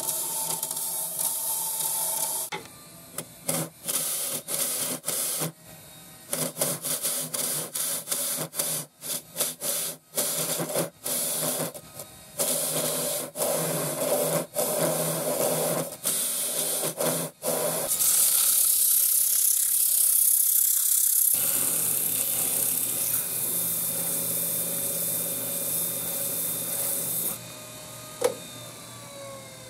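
A gouge cutting the inside of a spalted maple bowl spinning on a RIKON midi lathe: a hissing shear of wood broken into many short cuts as the tool goes on and off the wood, then one long, louder continuous cut. Near the end the cutting stops, leaving the lathe's motor hum, which falls in pitch.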